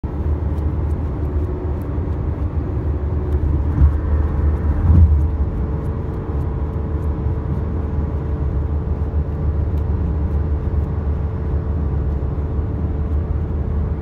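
A car driving: a steady low engine and road rumble, swelling briefly louder about four to five seconds in.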